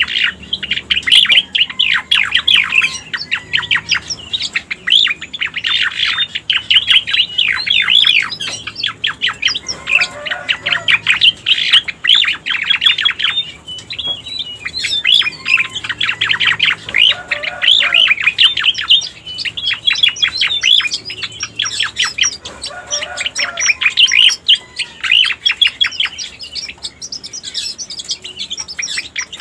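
Cica koreng (cucak koreng) song played as a bird-lure recording: long bouts of rapid, chattering chirps, with a few short lower notes mixed in.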